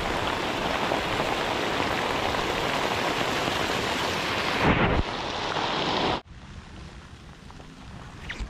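Heavy rain hissing on the river surface, with a brief louder low rumble about five seconds in. The rain sound cuts off abruptly a second later, leaving a much quieter, lighter patter.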